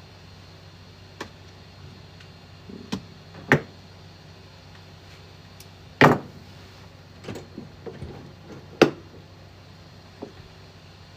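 Scattered sharp clicks and knocks of hands working on a 3D printer, handling tools and parts, over a steady low hum. The loudest knock comes about six seconds in.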